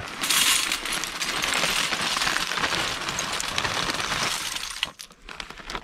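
Lumps of charcoal poured from a plastic zip bag into a folding metal hobo stove, clattering continuously against the metal walls and each other for about four and a half seconds before stopping near the end.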